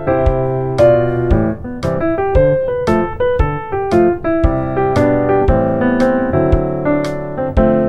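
Background music: a piano tune of changing chords over a light, steady beat.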